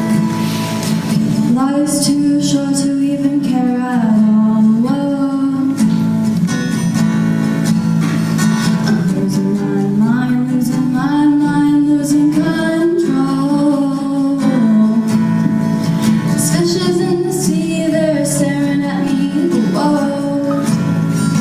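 A woman singing over acoustic guitar. Her voice comes in about two seconds in and sings three phrases with short gaps between them, while the guitar chords carry on underneath.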